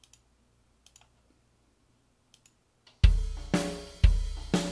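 A few faint mouse clicks, then about three seconds in, EZDrummer 2 drums rendered to audio tracks start playing back: a kick and snare pattern, four hits about half a second apart, each ringing out.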